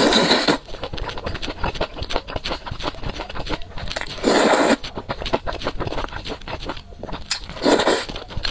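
Thick noodles in spicy sauce slurped into the mouth three times, each slurp about half a second long, with wet chewing and mouth clicks in between.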